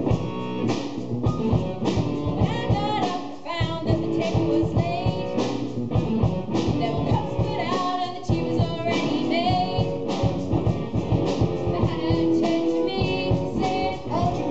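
Song with a steady beat, guitar and singing.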